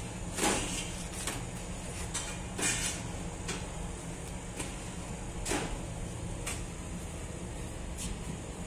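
Barbari flatbreads tossed and stacked onto a wire cooling rack, landing with short, irregular soft knocks about once a second, over a steady low hum.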